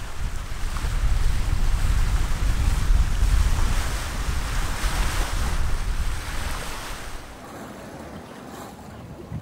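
Wind blowing on the microphone over the hiss of water rushing past a sailboat's bow as it sails at speed. The wind rumble and the rush drop to a quieter hiss about seven seconds in.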